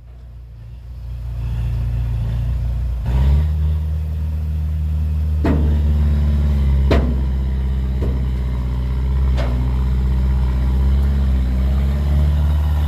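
Heavy diesel engine of earthmoving machinery running: it builds up over the first seconds, comes in loud and steady about three seconds in, and keeps running with a low steady drone. A few sharp clanks are heard over it, four in all.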